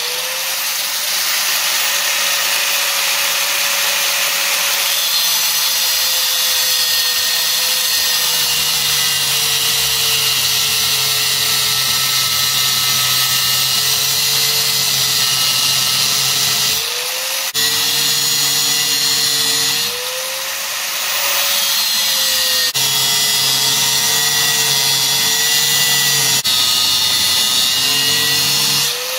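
Angle grinder with a thin cut-off disc cutting notches into a square steel bar: a steady motor whine over the hiss of the disc biting the metal. Several times the whine briefly rises in pitch as the disc is lifted off the steel between cuts.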